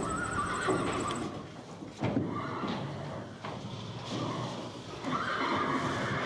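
Horse neighing: one whinny at the start lasting about a second, and another starting about five seconds in.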